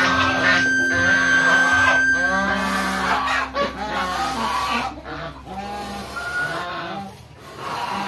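Poultry calling, a goose among them: many short repeated calls, over background music that drops away after about two and a half seconds.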